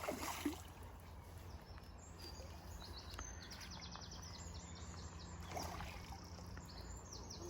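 A small bird singing a quick series of short, high chirps, starting about two seconds in, over a steady low outdoor rumble.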